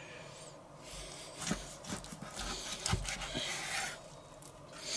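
Chef's knife drawn back and forth through a raw pork loin, the blade rasping with a few light knocks against the wooden cutting board.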